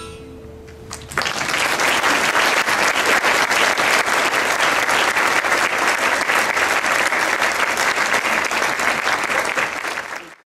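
The last notes of the song fade, and about a second in an audience breaks into applause, steady and dense, until it cuts off suddenly near the end.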